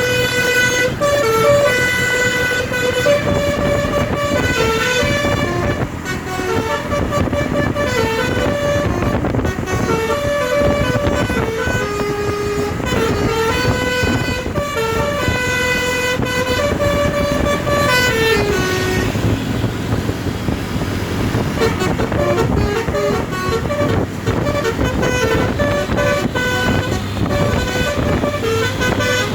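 Telolet basuri musical bus horn (DAV air horns run by a V4 module) playing a tune of held, stepping notes over the bus engine running. About eighteen seconds in the loud tune breaks off, leaving the engine and fainter horn notes.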